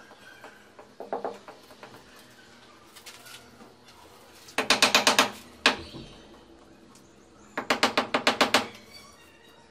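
Quick runs of sharp taps from the butt of a wooden hammer handle knocking a granite countertop piece down onto its bed of wet mortar to seat and level it. A short run comes about a second in, then two longer runs of about eight to ten taps each, the second near the end, with a single knock between them.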